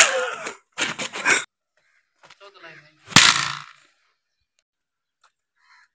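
A single sharp smack about three seconds in, a stick striking a person in a staged beating. Before it there are short bursts of shouting.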